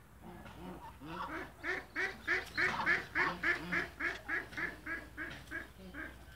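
White domestic waterfowl calling in a rapid, even series of about sixteen calls, roughly three a second. The calls grow loudest in the middle and then fade.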